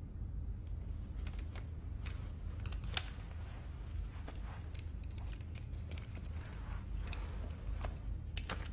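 Small clicks and soft rustles of wire-rimmed eyeglasses being taken off and handled, over a steady low room rumble.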